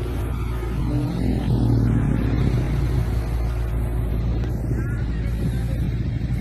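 A car engine running steadily with a low hum, with no impacts.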